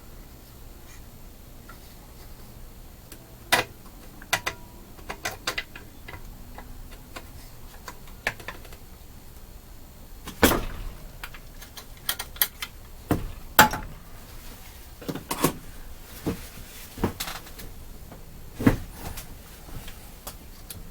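Scattered sharp clicks and knocks, irregularly spaced, of tools and small parts being handled on a workbench during chainsaw carburetor work. The loudest knocks come a little past halfway through.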